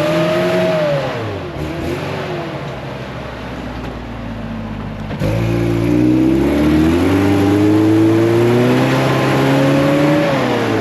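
Off-road 4x4 engine revving hard while climbing on a slippery hill. A short rev rises and falls off in the first second or so and the engine settles lower. About five seconds in it comes back louder and climbs steadily in pitch, then drops off just before the end.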